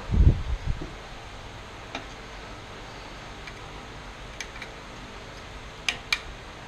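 A few low thumps at the start, then a handful of sharp, isolated clicks and ticks of hands working on small metal parts; the last two come close together near the end.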